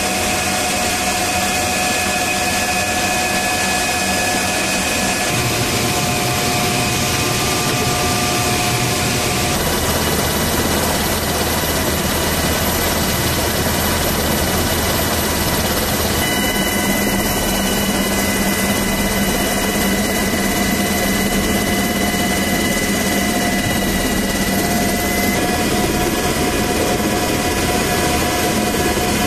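MH-60R Seahawk helicopter turbine engines running: a steady, loud whooshing noise carrying several high whining tones, whose pitches shift a few times.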